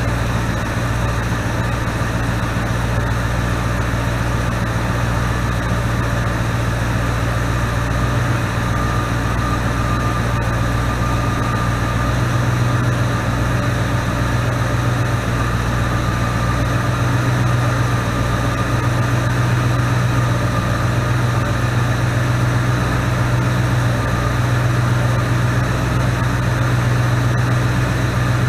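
Ford 289 V8 idling steadily, a low even hum, on its first run after sitting 20 years and a top-end rebuild, with the timing and carburettor not yet adjusted.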